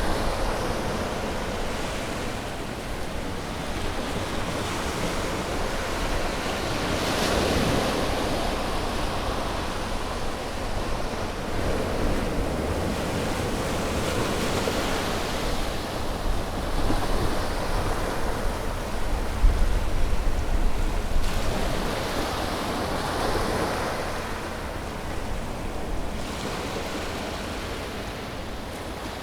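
Sea waves breaking and washing on a shore, with surges about every four to five seconds, and a low rumble that sounds like wind on the microphone.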